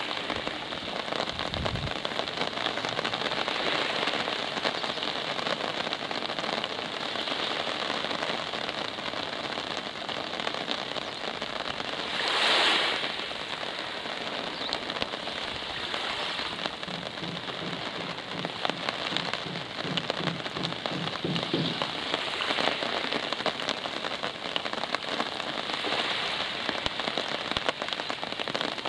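Steady rain falling, a dense hiss made of many small drop ticks. About twelve seconds in, a brief louder rush of noise swells and fades.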